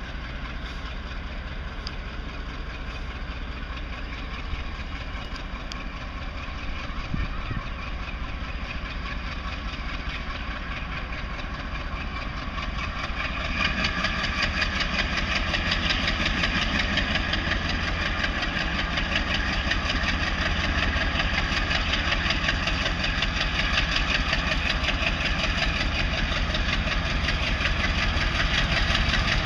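Diesel locomotive engine running steadily under load, growing louder about halfway through as it is worked harder to pull its train.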